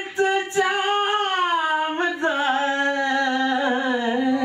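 A man singing a Punjabi song unaccompanied, holding one long ornamented note that slides down in pitch about halfway through and settles lower.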